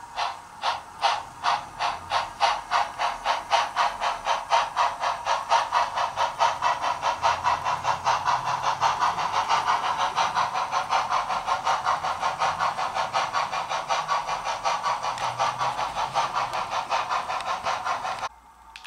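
Steam exhaust chuffing from the sound system of a Bachmann 2-8-0 model steam locomotive, a steady rhythm of hissing puffs that quickens as the engine picks up speed. It cuts off suddenly near the end.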